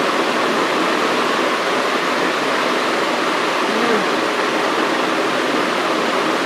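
Steady rushing noise of a window air conditioner running, with a brief faint vocal sound about four seconds in.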